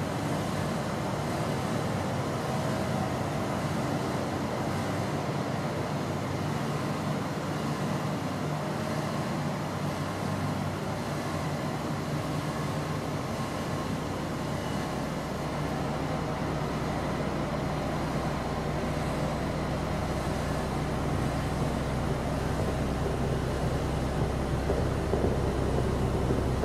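A steady low ambient drone with held bass tones under a noisy hiss. A deeper rumble fills in from about halfway through and the drone slowly grows louder.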